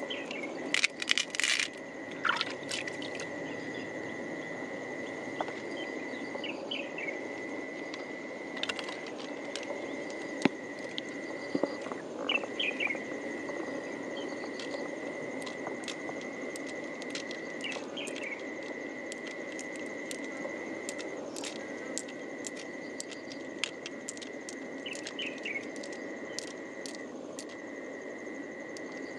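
Pearls clicking and tapping as they are picked out of an opened freshwater mussel and dropped among other pearls in a shell, with a quick cluster of clicks about a second in and scattered taps after. Underneath are a steady high-pitched insect drone and a low hiss of running water.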